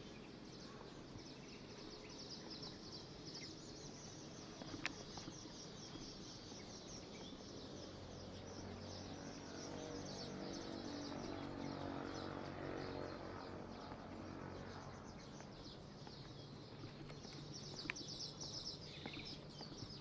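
Garden birds chirping and twittering continuously, high-pitched and thick, over a low hum that swells and fades through the middle. Two sharp clicks come, one about five seconds in and one near the end.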